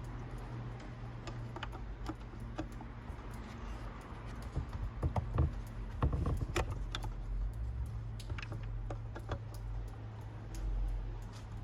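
Scattered small plastic clicks and knocks of hands working a car's rear light cluster and bulb holder back into place, busiest around the middle, over a steady low hum.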